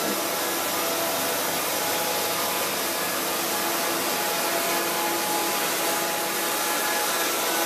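Wood-Mizer LT70 band sawmill cutting through a squared log, its engine running steadily under load as the band blade saws along the cut, with a continuous even rushing noise and a faint hum.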